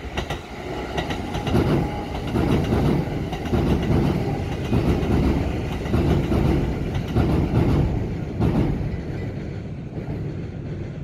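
Electric passenger train passing over a level crossing, its wheels clattering over the rail joints in a beat of about once a second. The sound eases off near the end as the train clears the crossing.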